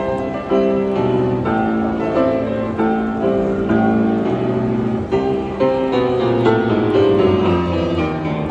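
A grand piano played by hand: a steady flow of chords and melody notes.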